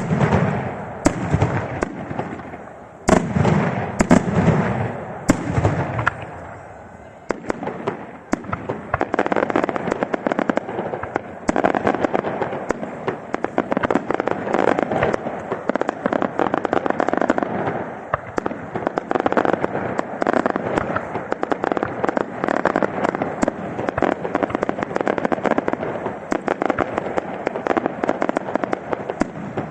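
Daytime aerial fireworks: several loud shell bursts with deep booms in the first six seconds, then a long, dense run of rapid small cracks from firecracker-type shells that carries on to the end.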